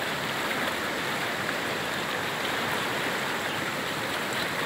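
Fast-flowing muddy floodwater rushing, a steady, even noise.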